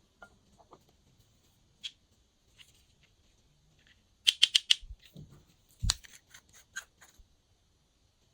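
Glossy slime being worked by hand with add-ins mixed in, giving sticky sharp clicks. A quick cluster of about five clicks a little past the middle is the loudest, followed by a few more single clicks.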